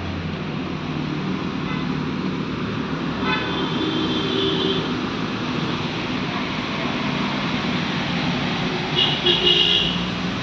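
Steady road traffic noise with a vehicle horn sounding twice, once about three seconds in and again near the end.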